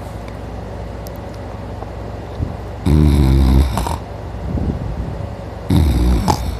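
A man snoring loudly in deep sleep: two long snores about three seconds apart, each lasting about a second.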